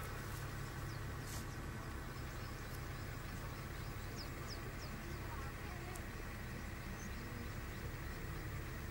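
Steady low rumble with a hiss above it, and three faint high chirps a little after four seconds in.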